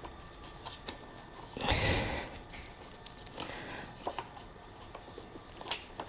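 Hand work on the motorcycle's wiring: scattered light clicks and taps, with a short louder rustling, tearing noise about two seconds in.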